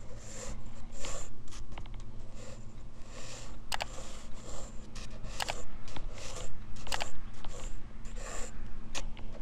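Graphite pencil sketching on drawing paper, picked up close by a clip-on microphone: short scratchy strokes one after another, about one or two a second, with a few sharp ticks among them.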